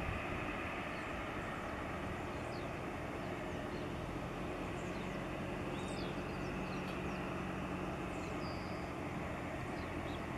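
Jet engines of a Boeing 737-700 (CFM56-7B turbofans) running steadily at low power, a continuous whine and rush with a low hum underneath.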